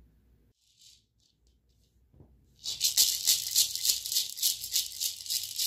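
Guaje (dried gourd rattle) shaken in a fast, steady rhythm, starting suddenly about two and a half seconds in after a few faint rustles.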